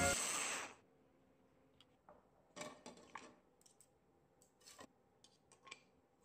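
Music fading out in the first second, then scattered light clicks and taps of a plastic mini food chopper's bowl and blade being handled, with no motor running.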